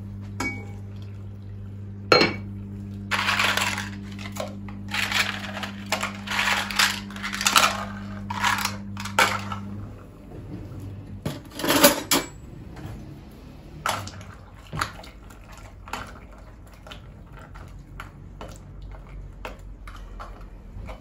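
Kitchen clatter of pots, dishes and utensils in a run of short, irregular knocks and rattles, with a louder clank about twelve seconds in. A steady low hum runs underneath and stops about ten seconds in.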